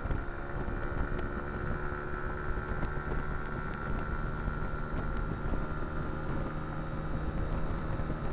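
Kymco Dink Street scooter's single-cylinder engine running at a steady cruise, a steady droning tone over low wind and road rumble on the microphone.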